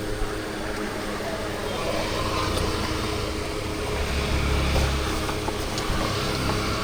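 Street traffic noise with a vehicle passing close by, its low rumble swelling about four to five seconds in, under faint background voices.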